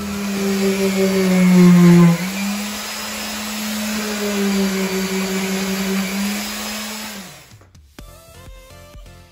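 Handheld electric sander running on a bare wooden stair tread: a steady motor hum with a hiss. It is loudest for the first two seconds, then runs a little higher and quieter, and winds down with a falling pitch near the end.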